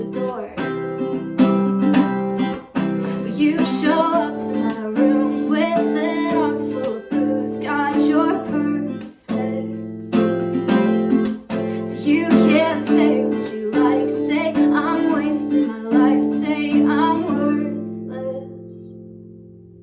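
A voice singing over strummed acoustic guitar. Near the end the singing stops and the last chord rings out and fades.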